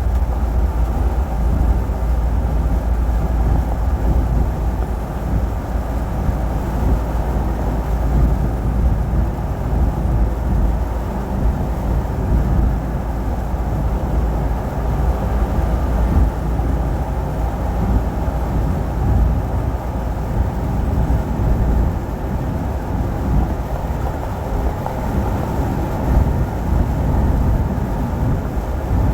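Truck driving on the road: a steady, low rumble of engine and tyre noise.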